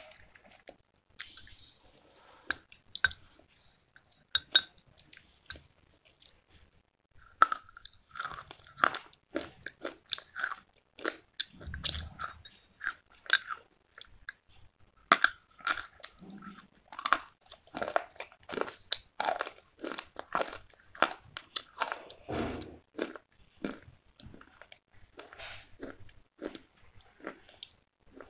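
Close-miked crunching and chewing of hard slate pencil sticks: sharp, gritty crunches, scattered at first and then coming thick and fast from about a quarter of the way in.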